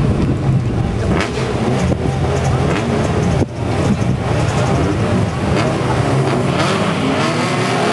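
Several modified sports-car engines idling and blipping the throttle together, with a low exhaust note underneath. Near the end one engine revs up, rising in pitch.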